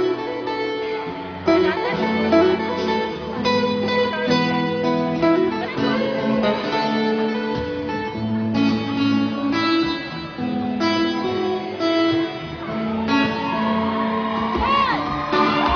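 Acoustic guitar strumming a run of chords, each new chord struck hard and left to ring. High-pitched screams from the audience rise over it near the end.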